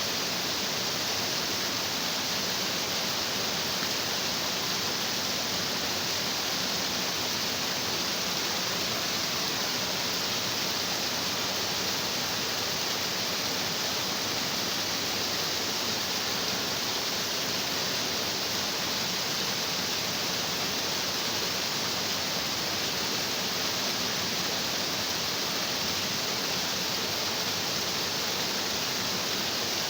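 Stream water rushing and splashing over rocks, a steady, unbroken rush.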